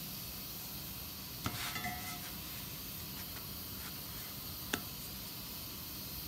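Steady hiss of an Instant Pot letting off steam while it steams dumplings, with a light clink that rings briefly about a second and a half in and a short tap near the end.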